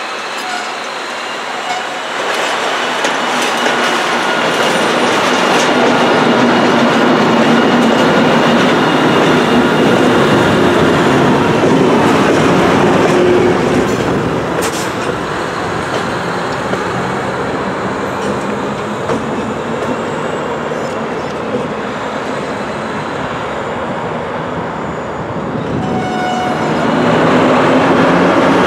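Knoxville Locomotive Works switcher locomotive running as it moves a cut of boxcars at low speed, with the steel wheels rolling and clacking over the rail joints. It gets louder as the boxcars pass close by near the end.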